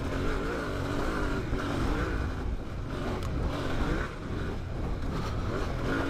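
2022 Yamaha Ténéré 700's parallel-twin engine revving up and down as the bike is ridden hard on a dirt track, its pitch rising and falling every second or so.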